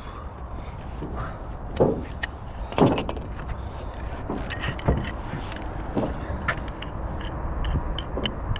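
Steel clamp parts clinking and knocking as a bricklayer's top clamp is handled and slid into place on blockwork, a few separate strikes over a steady low rumble.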